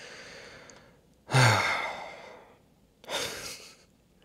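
A man's heavy sigh: a soft breath in, then a loud breath out with a falling voiced tone about a second in, followed by another breath in.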